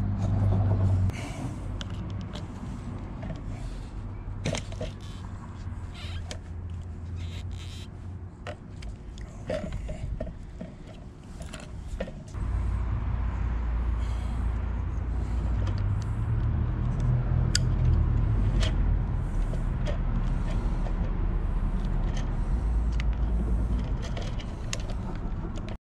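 Scattered light clicks and knocks of small fuel pump parts being handled, over a steady low rumble that grows louder about twelve seconds in.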